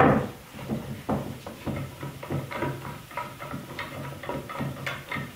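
Homemade wooden bar clamp being handled and adjusted on a wooden box: a sharp wooden knock at the start, then a run of light, irregular clicks and knocks as the jaw slides on the bar and the threaded screw is worked.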